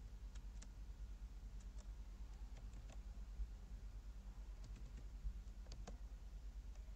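Keystrokes on a computer keyboard as a search word is typed: scattered short clicks in small clusters with pauses between, over a low steady hum.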